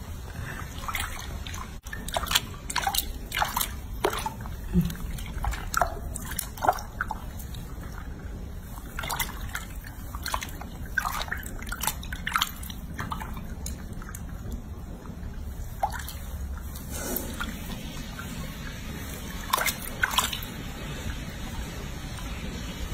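Bathwater in a sink sloshing and dripping as hands rub and scoop water over a baby monkey: small irregular splashes and drips, busiest in the first half, sparse for a few seconds past the middle, then a couple more.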